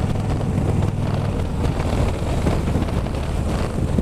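2011 Harley-Davidson Electric Glide's V-twin engine running steadily at highway cruising speed through Screaming Eagle pipes, mixed with gusty wind buffeting the microphone.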